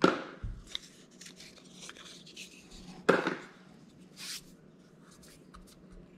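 Handling sounds of a small laptop expansion card being taken out of its paper packaging tray. Sharp knocks and clicks, the loudest right at the start and about three seconds in, with a short scrape just after four seconds and light clicks between.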